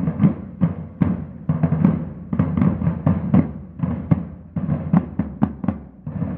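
A corps of brass-shelled marching drums playing a cadence together: clusters of sharp strokes in a repeating rhythm, with short gaps between phrases.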